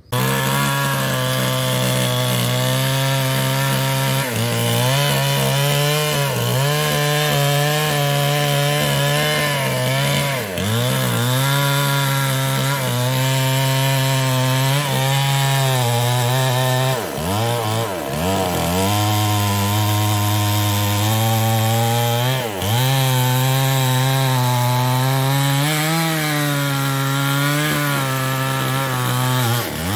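Chinese-made two-stroke chainsaw running at high throttle, cutting through mahogany wood. Its engine pitch dips briefly every few seconds as the chain loads in the cut, once deeply at about the middle.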